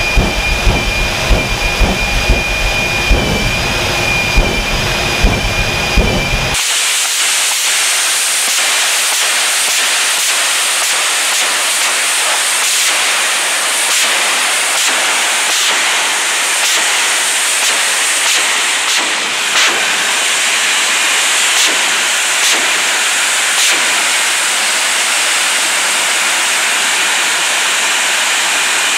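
The Hellfire jet truck's General Electric J79 turbojet running. For the first six seconds it is a steady high whine over a deep rumble, then it changes abruptly to a loud, steady, high-pitched rushing hiss.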